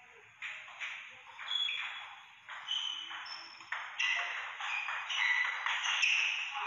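Table tennis rally: a celluloid-type ball struck back and forth with paddles and bouncing on the table, a run of quick, sharp hits, with a few short high squeaks between them.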